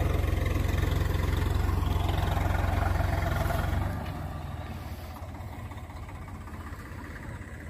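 Swaraj tractor's diesel engine running steadily while it pulls a groundnut digger through the field. About four seconds in the engine sound drops clearly and carries on fainter.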